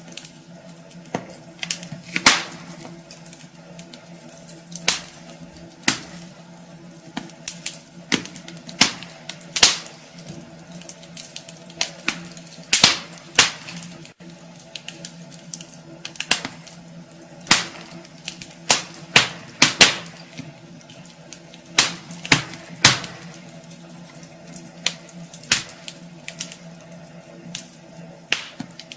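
Wood fire crackling in a fireplace: irregular sharp pops and snaps, some in quick clusters, over a steady low hum.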